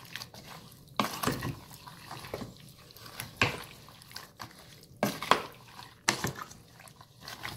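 Wooden spoon stirring soaked white beans in stock and water in a metal pot: wet sloshing broken by irregular clacks and knocks about once a second.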